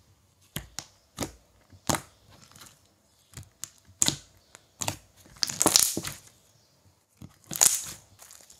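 Textured slime made from a white-glue and wood-glue base being squeezed, pulled and pressed by hand: a run of sharp crackling and tearing snaps, with two longer crunchy stretches near the middle and near the end.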